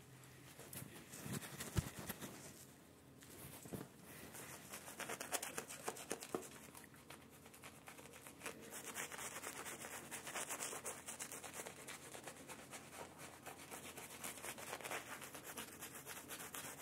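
Synthetic shaving brush scrubbing lather onto stubbled cheeks and chin: a soft, continuous scratchy rubbing that starts about four seconds in, after a single knock.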